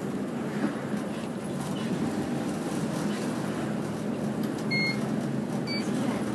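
Interior running noise of a route bus driving at moderate speed: a steady low engine and road rumble. Near the end come two short high beeps about a second apart.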